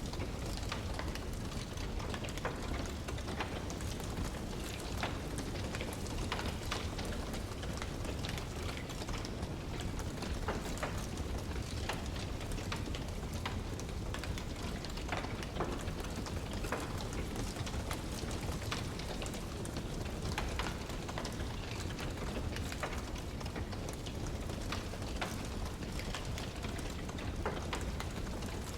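Wood fire crackling in a fireplace: irregular sharp pops and snaps from the burning logs over a steady low rumble.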